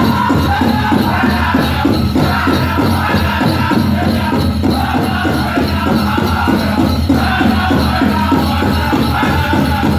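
Powwow drum group playing a chicken dance song: a big drum struck in a fast, even beat under high, chant-style group singing that comes in phrases a few seconds long.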